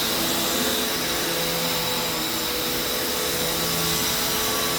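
Hoover Taskvac commercial bagged upright vacuum cleaner running steadily while vacuuming carpet: a steady motor hum with a high whine over the rush of air. Its brush roll is agitating and lifting the carpet pile.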